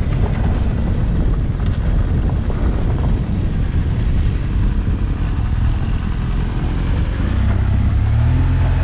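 Adventure motorcycle's engine running while riding over a rough, wet dirt track, under heavy road and wind noise. Faint sharp clicks come at a regular beat, about one every second and a quarter, and the engine's low note grows louder near the end.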